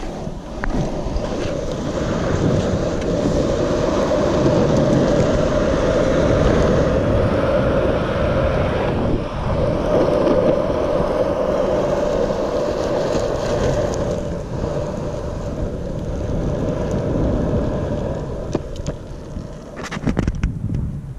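Loaded Icarus longboard's urethane wheels rolling on rough asphalt: a loud, steady rolling rumble that dips briefly in the middle. A few sharp clicks come near the end.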